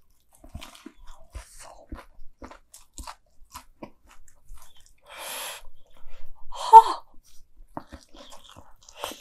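Close-miked chewing of a deep-fried mac and cheese ball, with soft crunches of the fried coating and small wet mouth clicks. There is a breathy rush about five seconds in and a short, louder, pitched mouth sound a little before seven seconds.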